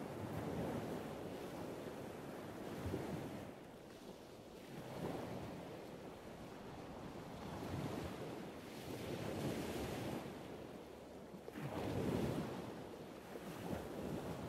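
Ocean surf breaking and washing, rising and falling in slow surges, with wind buffeting the microphone.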